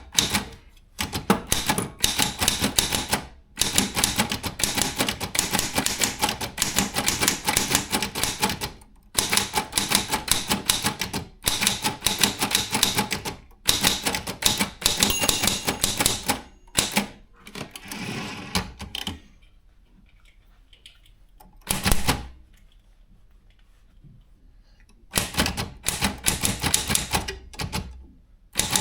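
Brother Chevron/Olympia B12 manual typewriter being typed on, its typebars striking the platen in fast runs of clacks with short breaks. Past the middle the typing stops for several seconds. One loud knock falls in this pause, and then the typing resumes.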